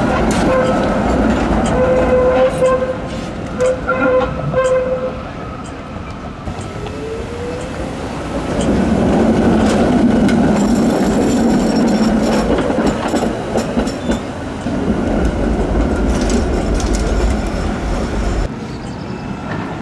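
Antwerp PCC trams passing close on street track, steel wheels rolling on the rails. In the first few seconds the wheels squeal in steady tones, there is a short rising whine, and a heavier rumble comes as a tram goes by about ten seconds in.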